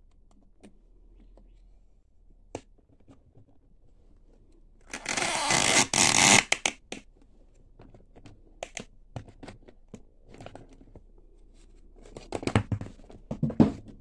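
Metal clicks and knocks from a lever bearing press and a skateboard wheel being handled, with a loud rushing scrape lasting about two seconds near the middle and a cluster of knocks and scrapes near the end.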